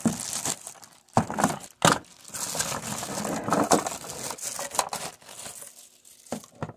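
Clear plastic bag crinkling and rustling as a model locomotive is slid out of it, on and off, with sharp crackles about two seconds in.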